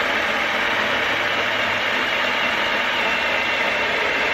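Cordless JawSaw electric chainsaw running, its chain cutting steadily through a log.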